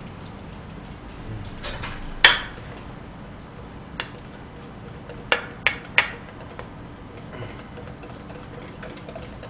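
Wire whisk beating pajeon batter in a stainless steel mixing bowl, with the whisk clinking against the side of the bowl. The loudest clink comes a little over two seconds in, and three more follow close together at about five to six seconds.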